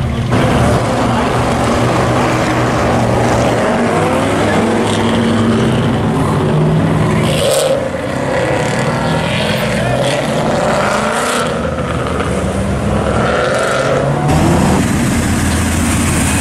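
Muscle car engines running as the cars drive slowly past, with several loud revs that rise in pitch, cut from one car to the next.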